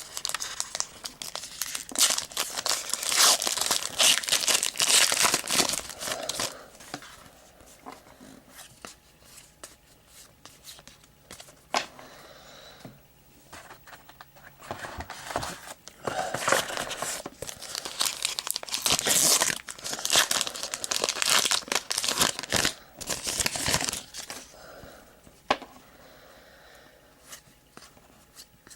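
A trading-card pack wrapper being torn open and crinkled, in two stretches of crackly rustling with quieter clicks of card handling between.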